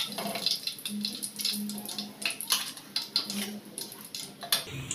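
Hot oil crackling in a deep pot as a fried chicken chop is lifted out with a steel spatula, with irregular clicks and clinks of the spatula against the pot.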